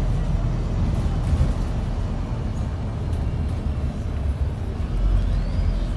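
Wright StreetDeck double-decker diesel bus heard from inside the passenger cabin on the move: a steady low engine rumble with road noise. A faint high whine rises and falls near the end.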